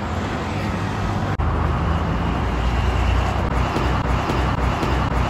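Road traffic on a city street: a steady hum of passing vehicles, with a louder low engine rumble after a brief dropout about a second and a half in.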